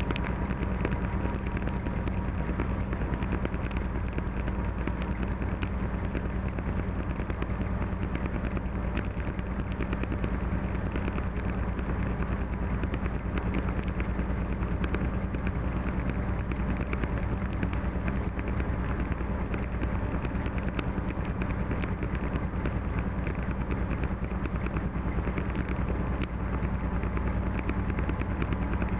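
Class 731 diesel locomotive running steadily, heard inside its cab: the engine drones low and even, with many small clicks and rattles over it.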